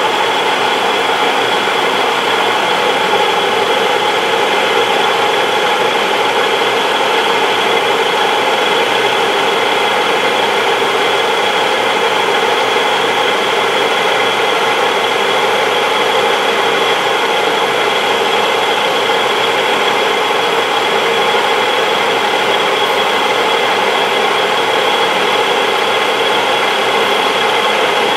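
Engine lathe spindle running at about 700 RPM on freshly replaced spindle bearings, with the power feed taking a light turning cut on a 1045 cold-rolled steel bar using a Seco WNMG insert. A steady machine hum and gear whine with several held tones, unchanged throughout.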